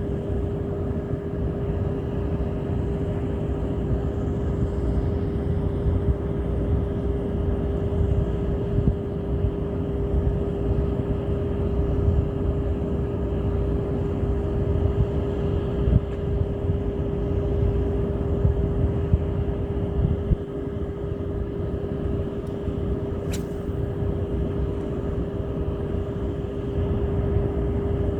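Steady mechanical drone: a continuous low rumble with an unchanging hum, like a running motor, and a single brief tick near the end.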